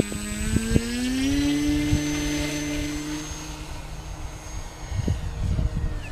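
E-Flite Timber RC plane's electric motor and propeller whining, rising in pitch about a second in as the throttle comes up, then holding and fading. Wind buffets the microphone near the end.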